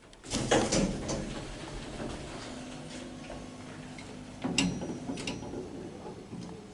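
1980s Express hydraulic lift's doors and machinery working: a cluster of loud clunks and clicks just after the start, a faint steady hum through the middle, then another burst of knocks and clicks at about four and a half seconds.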